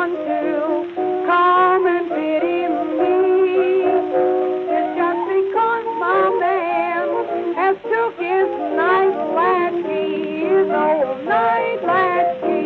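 Old, narrow-sounding blues record playing: a wavering melody line with vibrato over sustained band accompaniment.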